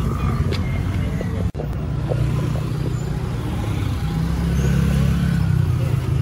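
Street traffic: motor scooters and cars running close by, a steady low engine rumble that swells about four seconds in. A very brief gap in the sound comes about a second and a half in.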